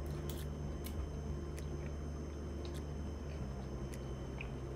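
A person chewing a mouthful of instant cup noodles, with a few faint scattered clicks, over a steady low hum.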